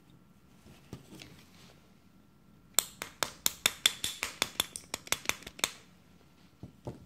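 Small hammer tapping on the steel trigger group of an Ithaca Model 37 shotgun: a quick run of about seventeen light taps over roughly three seconds, starting a little before the middle, knocking the parts into line for the pin. A faint scrape of handling comes first.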